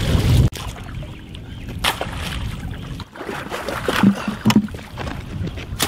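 Fish splashing and knocking about in a plastic bucket of water as they are handled and dropped in, in scattered bursts. A low rumble cuts off about half a second in.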